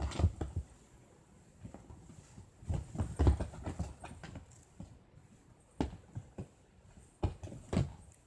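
Irregular soft knocks and thumps in short clusters: one at the start, a longer run about three seconds in, and a few more near the end.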